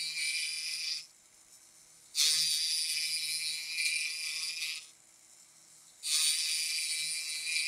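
Hand checkering cutter rasping into a rifle's wooden stock in runs of rapid scratchy strokes, each run a couple of seconds long with a short pause between.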